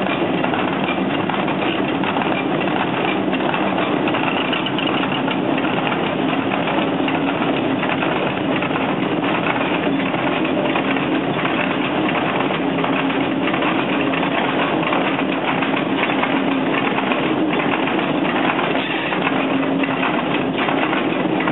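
Water-powered gristmill's millstones running as they grind corn: a steady mechanical rumble with a fast, dense rattle over it.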